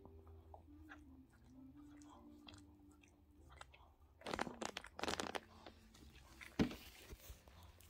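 Yorkshire terrier mother licking and chewing at her newborn puppy: wet, crunchy mouth noises in a few short bursts about halfway through, with one sharp louder snap near the end.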